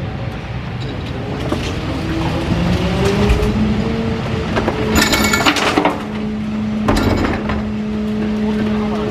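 Rear-loader garbage truck's hydraulic cart lifter raising two wheeled bins with a rising whine, then banging them at the top of the tip so that the contents empty with loud clattering and clinking glass, twice; a steady hydraulic hum follows as the bins are lowered, over the truck's idling engine.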